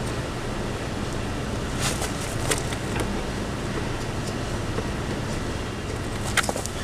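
Steady low background rumble with a few light clicks and taps, the sharpest a little before the end.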